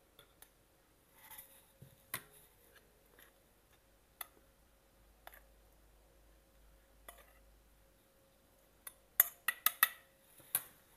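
A metal spoon scooping flour in a stainless steel bowl: a few scattered light taps of the spoon on the bowl, then a quick run of louder clinks near the end.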